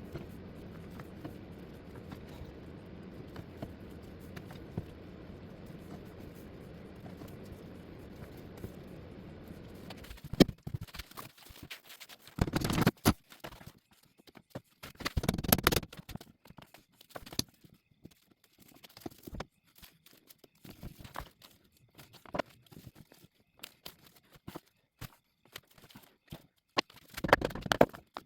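A steady low hum that cuts off about ten seconds in, then scattered knocks, clatters and rustling, as of pieces being handled on a shop bench.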